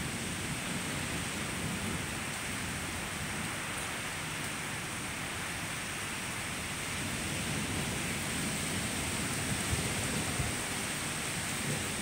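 Steady rain in a thunderstorm, an even hiss throughout, with a few short low rumbles about ten seconds in.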